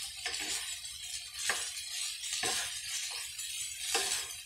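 Wooden spatula stirring and scraping rice against a metal frying pan, several strokes about a second apart, over a steady frying hiss.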